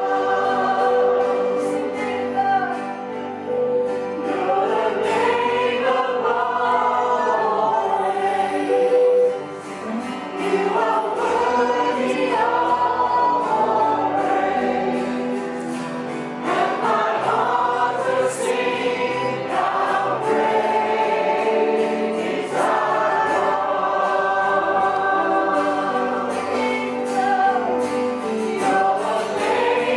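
A choir singing Christian music, with long held notes.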